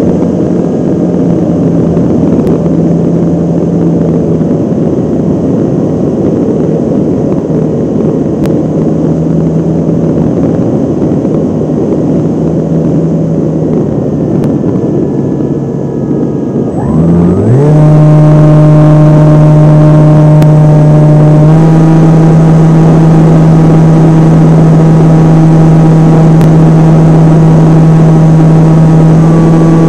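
Remote-control model airplane's motor and propeller, close to the onboard camera, running steadily with airflow noise. About halfway through the pitch dips briefly, then rises sharply and the sound gets louder as the motor speeds up, stepping up a little more a few seconds later.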